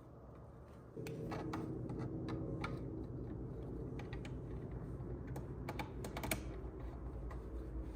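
Scattered sharp clicks of steering-column parts being handled and fitted back together, over a steady low hum that starts about a second in.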